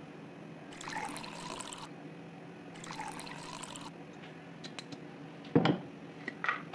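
Water poured from a cut-glass carafe into crystal glasses: two short pours of about a second each, one after the other. A sharp knock follows a couple of seconds later.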